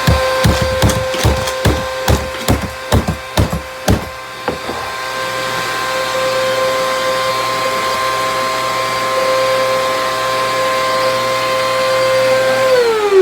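Vacuum cleaner motor running with a steady high whine while screws and bolts sucked into it rattle and clatter through it in rapid knocks for about the first four seconds, then it runs on smoothly. Right at the end its whine begins to fall as the motor winds down.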